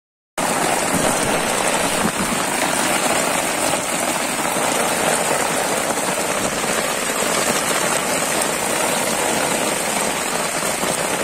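Heavy rain falling on open floodwater, a steady even hiss of drops striking the water surface that starts about half a second in.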